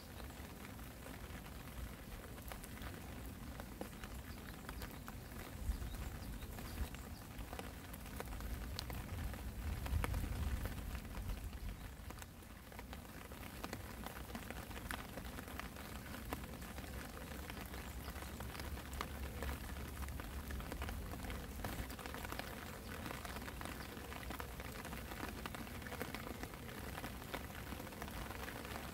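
Light spring rain falling into a puddle and on wet gravel ground: a steady patter of separate drops ticking into the water. A low rumble comes and goes through the middle stretch.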